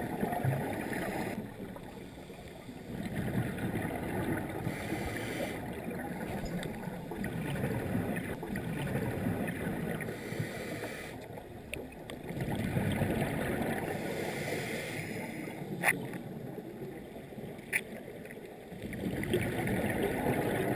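Scuba regulator breathing recorded underwater: long rushes of exhaled bubbles every few seconds with quieter gaps between them. Two sharp clicks come in the second half.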